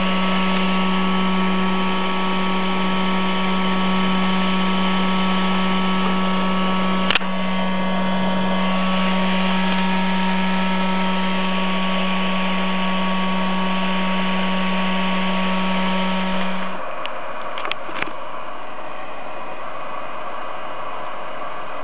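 A steady electrical hum over a hiss, with one click about 7 seconds in. The hum cuts off abruptly near 17 seconds, followed by a few clicks and then a quieter hiss.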